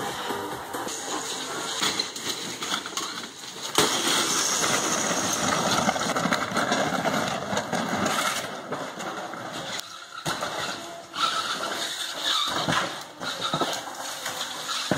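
Drive motors of a converted electric wheelchair sumo bot running as it rams and shoves a dishwasher, with scraping and clattering of the appliance and a sharp crash about four seconds in.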